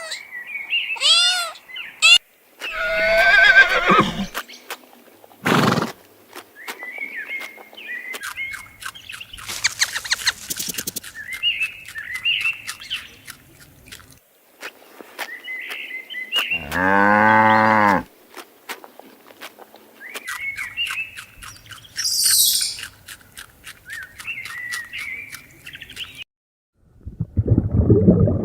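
Farm animal calls: several loud, drawn-out pitched calls, the longest a little past the middle, over repeated short bird chirps.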